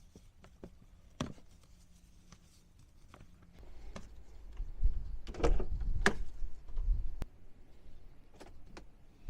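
Scattered clicks and knocks, then a run of heavier thumps and clunks with low rumbling, the loudest about five and a half and six seconds in: a car's door and rear seat being handled as the rear seats are taken out.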